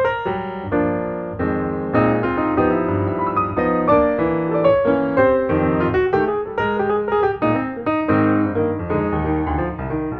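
Background piano music, a steady stream of struck notes and chords.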